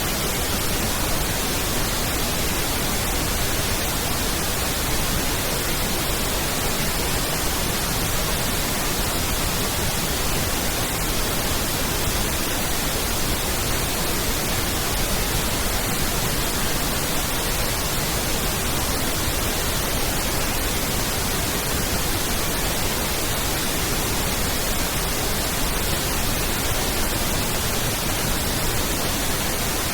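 Pink noise test signal: a steady, even hiss spread across all frequencies with equal energy per octave, used for aligning and equalising a sound system.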